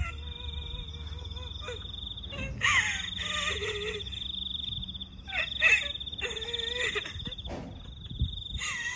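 Ghost sound effect: long wavering moans that rise and fall, coming in three spells, over a steady high trilling whine.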